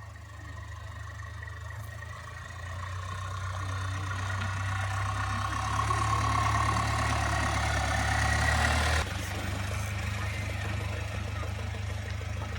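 Camper van engine and road noise while driving: a steady low drone that builds for about nine seconds, then drops suddenly to a lower, steady level.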